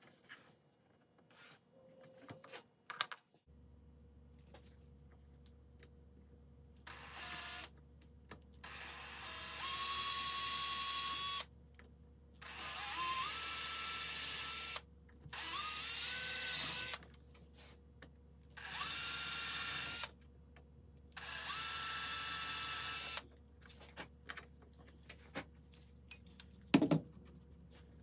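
Cordless drill-driver run in six short bursts at a steel hinge being reattached to a wooden chest lid; each burst winds up in pitch and then holds steady for a second or two. Small handling clicks come before the bursts, and a short knock comes near the end.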